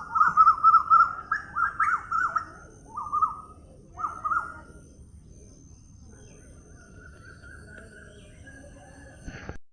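Songbirds chirping and singing: a loud run of quick repeated chirps for the first two and a half seconds, then two short phrases, then fainter song after about five seconds. A brief knock near the end.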